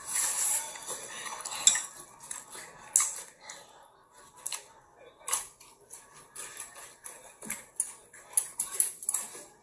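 Eating utensils clinking and tapping against plates and bowls at a meal, in irregular sharp clicks, with a quieter stretch around the middle.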